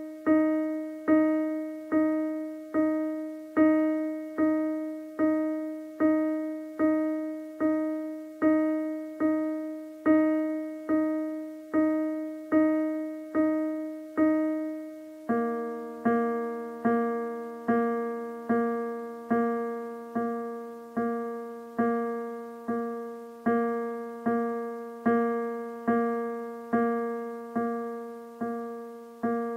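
Casio Privia PX-330 digital piano sounding one note struck repeatedly, about once a second, each note dying away before the next. About halfway through, the repeated note changes to a lower one.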